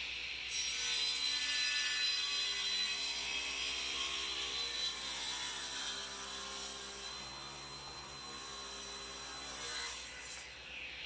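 Table saw ripping a strip off a thick block of mahogany. The cut starts about half a second in, with a steady, dense cutting noise over the blade's whine while the board is pushed through. About ten seconds in the cut ends and the blade spins on free.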